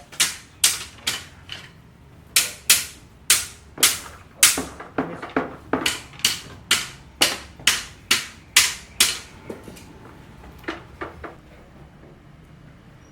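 Hammering: a long run of sharp hammer blows, about two or three a second, each ringing briefly, stopping after about nine seconds, with a few fainter blows a little later.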